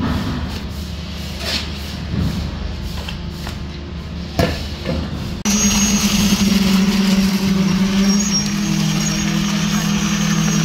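A shovel scraping and knocking through wet mortar in a few separate strokes. About halfway in it cuts suddenly to a louder, steady machine drone with a low hum and a thin high whine: a concrete pump running while concrete flows out of its hose.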